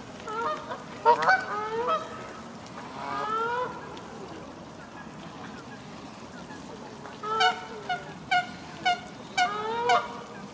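Canada geese honking: a few calls in the first two seconds and a longer rising one a little later, then a quick run of about six short honks near the end.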